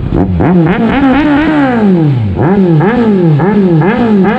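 Kawasaki Z1000's inline-four engine revved in quick throttle blips through a test-fitted SC-Project S1 slip-on exhaust. The pitch jumps up and falls back over and over, several times a second, with one longer rev that falls away about two seconds in.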